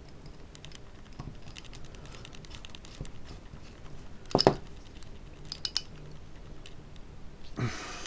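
Small clicks and taps of gimbal parts being handled and fitted together: a small black mounting plate, standoffs and a screwdriver. There is one sharp click about halfway through, a few lighter clicks soon after, and a short rustle near the end.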